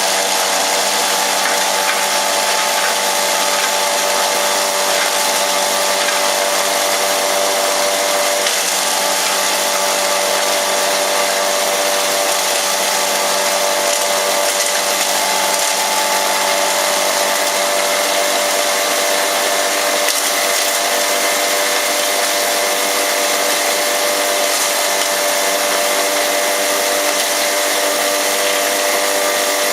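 Hammer mill herb grinder running steadily: several unchanging tones over a dense whirring noise.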